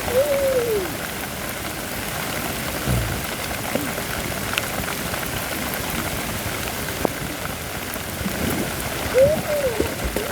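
Steady rain falling. A few short calls that rise and fall in pitch come at the start and again near the end.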